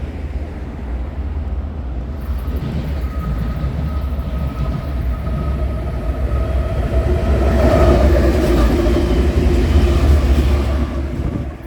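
Freight diesel locomotives running light, as a power move without cars, pass close by. Their deep engine rumble builds to its loudest about eight seconds in, with a steady whine over it, then eases off near the end.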